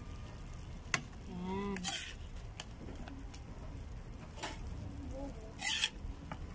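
A serving spoon clinking and scraping against a pan as cooked squash is scooped out into a bowl. There is a sharp clink about a second in, then short scrapes at about two seconds and four and a half seconds, and the loudest scrape just before the end.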